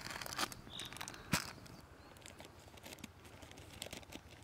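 Foil packet of groundbait crinkling as it is pulled from a bag, with one sharp click about a second in, then light crackling as scissors cut the foil packet open.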